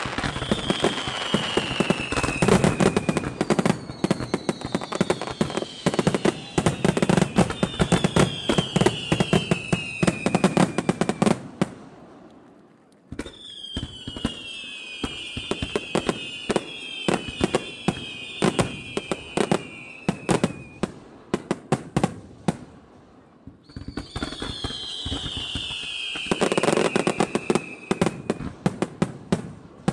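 Aerial fireworks barrage (starmine) firing: rapid bangs and crackling with several whistles gliding down in pitch. The firing drops away briefly twice, a little before halfway and again about three-quarters through.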